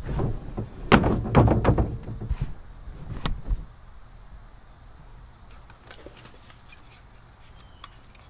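Plastic wheelie-bin lid handled and banged, a run of thumps and clatter over the first three and a half seconds, loudest about a second in. After that only faint clicks and handling noise.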